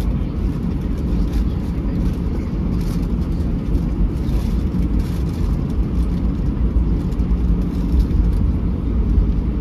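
Cabin noise of an Airbus A321-211 taxiing: a steady low rumble from its CFM56 engines at idle and the wheels rolling over the taxiway, slightly uneven from moment to moment.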